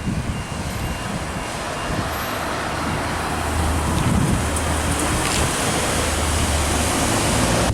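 A car driving past close by: engine and tyre noise that grows louder in the second half, with a steady low engine hum.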